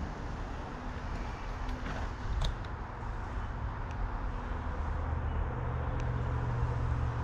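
Bicycle rolling along a paved trail, with wind rumbling on the microphone and tyre hiss, and a few light clicks.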